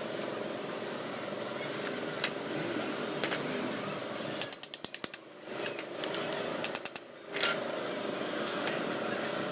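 Hand ratchet wrench clicking in two quick runs of rapid, even clicks, about four and a half seconds in and again about two seconds later.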